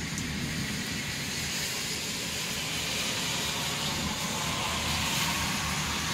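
Thunderstorm: a steady hiss of heavy rain over the low, rolling rumble of distant thunder, the hiss growing a little louder past the middle.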